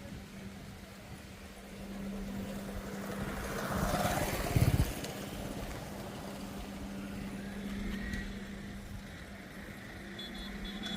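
Strong wind blowing. It swells about four seconds in with a rumbling gust on the microphone, then settles, over a steady low hum.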